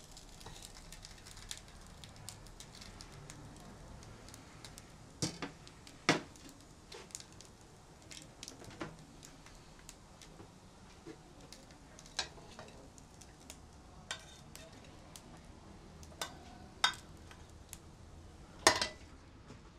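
Metal spatula scraping and knocking against a wok while rice is scooped into a ceramic bowl: scattered clinks with a few louder knocks, the loudest about six seconds in and near the end.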